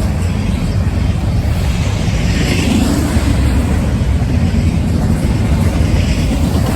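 Freight train rolling past: a steady rumble of wheels on the rails with no horn sounding.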